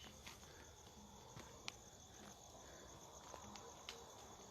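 Near silence with faint, steady cricket chirring, and a few faint short clicks.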